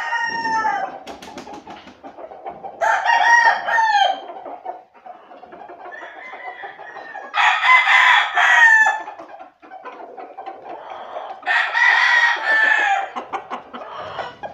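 Young gamecocks (stags) crowing: four long crows a few seconds apart, with softer calls between them.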